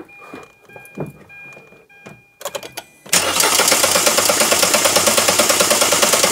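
Hyundai i10's 1.0-litre Kappa (G3LA) three-cylinder engine cranked on the starter motor with the rocker cover off, turning over with a fast even beat from about three seconds in. It is not firing because the cam sensor is unplugged: it is being spun to pump oil up to the camshaft bearings after the oil pump has been refitted.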